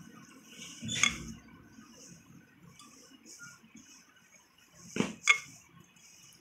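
A metal spoon stirring and scraping crumbly cookie dough in a glass mixing bowl, with sharp clinks of the spoon against the glass about a second in and twice in quick succession near the end.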